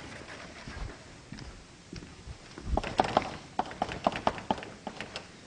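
Computer keyboard being typed on: quick, irregular key clicks, sparse at first and coming several a second from about halfway through, as code is typed in.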